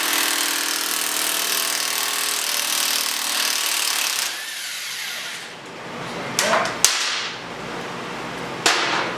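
Half-inch electric impact wrench hammering on the countershaft sprocket nut of a Suzuki V-Strom 650 to break it loose. It stops about four seconds in and winds down, then a few sharp metal clanks follow.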